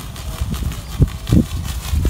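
Wind rumbling on the microphone, with two dull thumps about halfway through.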